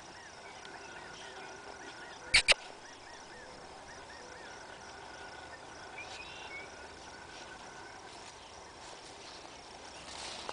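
Outdoor background with a repeated high chirping call, several chirps a second, fading out after the first few seconds, and two sharp clicks in quick succession a little over two seconds in.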